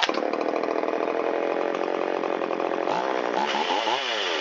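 Shindaiwa 360 two-stroke chainsaw catching at once on a warm restart and running fast at idle, with its carburettor's idle mixture freshly leaned. About three seconds in it revs up, then drops back near the end.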